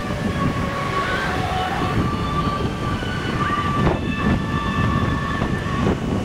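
Wind buffeting the microphone while cycling along a road, a steady low rumble, with faint thin whistling tones running over it.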